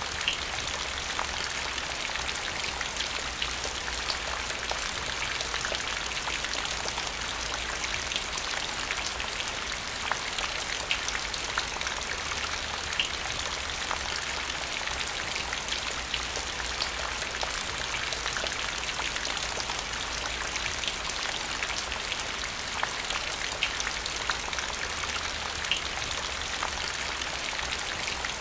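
Steady rain falling on the ground: an even, dense hiss with many separate raindrops ticking sharply through it.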